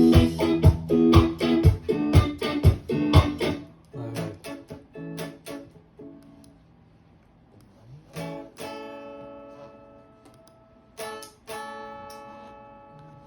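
A band groove of guitar over a regular deep drum beat plays for about three seconds, then stops. A few loose notes follow. Then two guitar chords are strummed a few seconds apart and left to ring out and fade.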